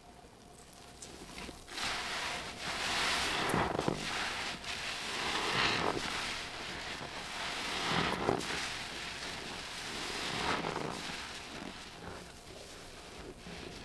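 A sponge soaked in blue Ty-D-Bol toilet-cleaner liquid being squeezed by hand, squelching as the liquid streams out. There are several squeezes, starting about two seconds in, each swelling and fading.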